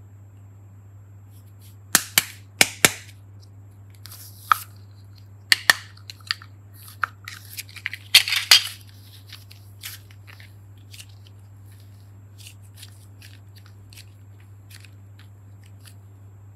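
Sharp plastic clicks and snaps as a hollow plastic toy ball is pried open and its halves handled, coming in a few groups with the loudest cluster about eight seconds in. Fainter crackly ticks follow as the soft foam clay is squeezed and shaped, over a faint low hum.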